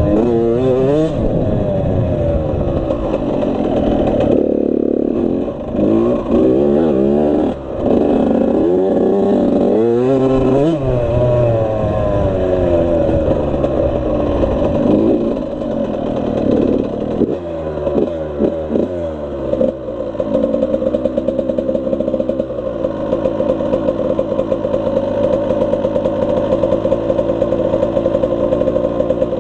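Suzuki RM85 85cc single-cylinder two-stroke dirt bike engine being ridden, revving up and dropping back again and again as the throttle opens and closes. For the last several seconds it settles to a steadier, lower note.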